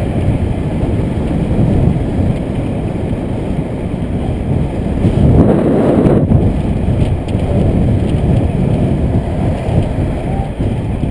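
Wind buffeting the microphone of a camera riding along on a road bicycle at speed: a loud, steady low rumble of rushing air that swells about halfway through.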